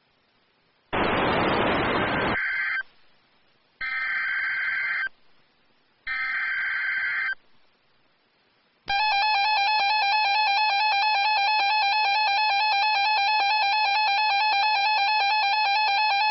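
Emergency Alert System SAME header on NOAA Weather Radio: a harsh, noisy data burst, then two more bursts of screeching data tones about a second apart. About nine seconds in the EAS attention signal starts, a loud, steady, buzzy two-tone alarm that holds to the end, announcing a new warning.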